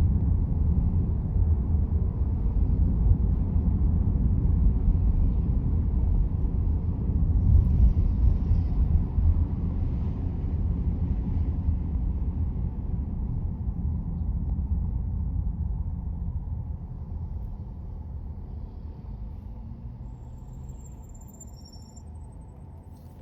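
Low road and tyre rumble heard inside a moving car's cabin. It dies away steadily over the last several seconds as the car slows toward a stop at a traffic light.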